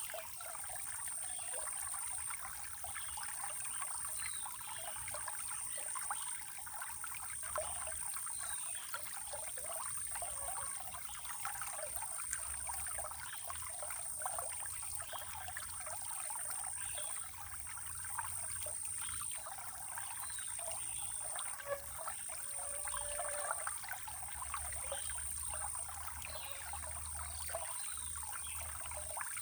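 Running water trickling and bubbling steadily, with a few faint bird chirps and a thin, steady high-pitched whine above it.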